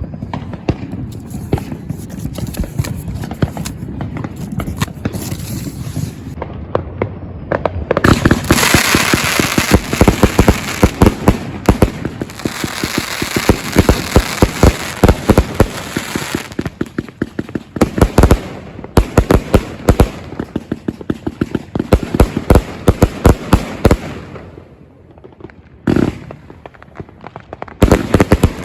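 A 219-shot consumer fireworks cake firing: rapid volleys of shots launching and bursting, coming thick and fast from about eight seconds in with a steady hiss between them. The shots thin to a lull near the end, broken by one single bang, before another fast volley starts.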